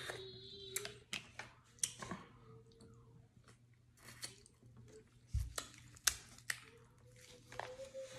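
Close-up mouth sounds of eating sauced seafood: wet sucking, lip smacks and chewing, heard as a string of sharp clicks and snaps. There is a dull low bump about five seconds in.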